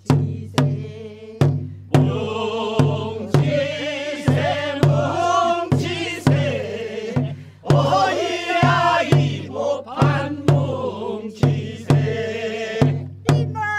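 Korean farmers' work song (nongyo) sung by a group in unison over a drum struck on a steady beat, about one stroke every 0.6 s. The drum plays alone at first and the voices come in about two seconds in.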